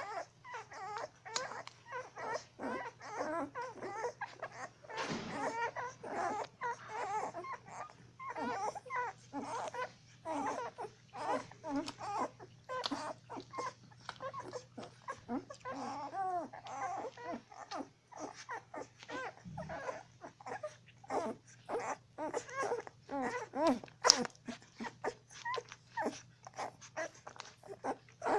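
A litter of 12-day-old puppies squeaking and whimpering while feeding: many short, high squeaks overlap throughout. A steady low hum runs underneath, and there is a single sharp click about three quarters of the way through.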